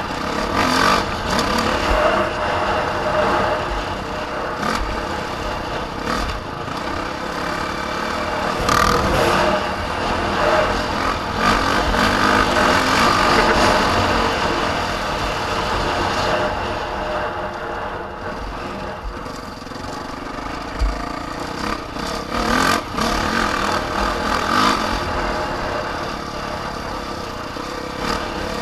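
A motor vehicle's engine running continuously under way, growing louder for a few seconds in the middle before easing off.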